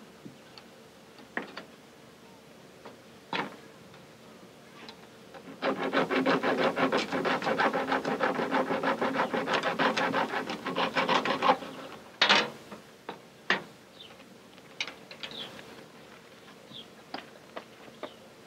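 Seed drill's mechanism worked by hand: a rapid run of rasping clicks, about six a second for some six seconds, then a few single knocks.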